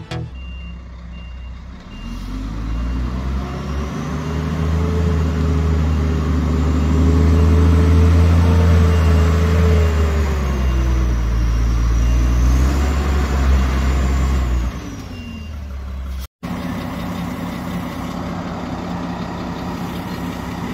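Truck engine working hard under load, building up, then rising and falling in pitch for several seconds as it strains, with a faint reversing beeper pulsing evenly. It eases off after about fifteen seconds, and a lower steady engine hum follows.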